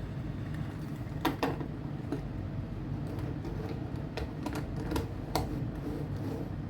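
Scattered clicks and light taps as an HO scale model locomotive and its plastic packaging are handled, over a steady low hum.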